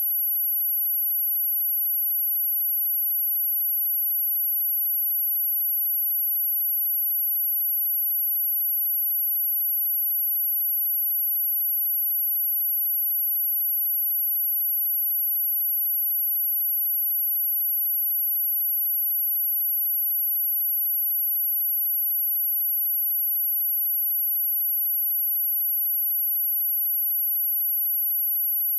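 A steady 11712 Hz sine-wave test tone, one unchanging high-pitched pure tone held without a break, used to test speakers or shake water and dust out of them.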